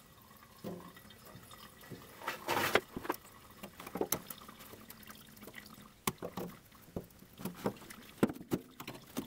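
Hand tools clicking and scraping against the metal locking tabs of a fuel level sender on an old car fuel tank, as they are pried up. Irregular sharp clicks throughout, with a longer scrape about two and a half seconds in.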